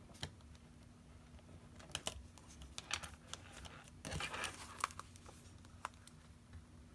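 Faint scattered clicks and ticks of needle-nose pliers gripping and bending the sharp cut end of a metal wire binding coil, with a short rustle of paper about four seconds in.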